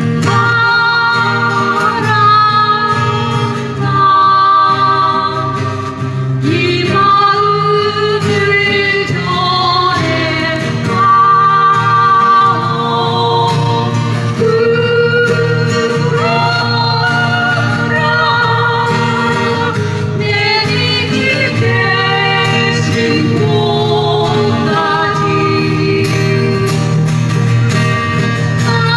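Live song: women singing together over strummed acoustic guitars, through a PA.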